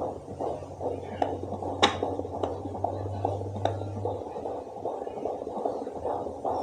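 Home fetal Doppler's loudspeaker giving a rhythmic pulsing as the probe is moved over a pregnant belly in search of the baby's heartbeat, over a steady low hum that stops about four seconds in. A few sharp clicks from the probe knock through.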